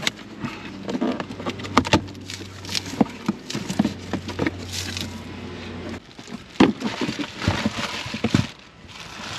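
Cardboard box being opened and unpacked by hand: a steady run of cardboard and plastic packaging crackling, rustling and scraping, with sharp clicks and knocks. A low hum underneath stops about six seconds in.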